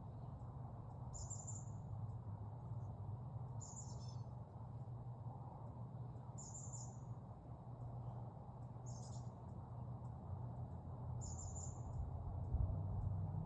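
A small bird's short, high-pitched call, repeated five times at an even pace of about one every two and a half seconds, over a steady low rumble.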